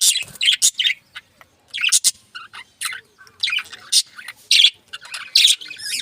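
Pet budgerigars and finches chirping: many short, high calls in quick, irregular bursts.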